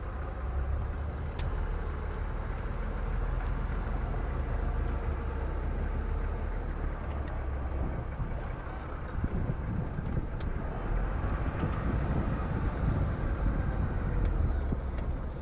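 Vehicle engine idling with a steady low hum; from about nine seconds in, uneven low rumbling joins it.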